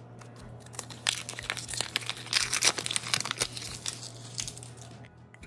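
Paper wrapper being torn and crumpled off a small metal can of deviled ham spread: a dense run of crinkling, tearing crackles from about a second in, dying away near the end.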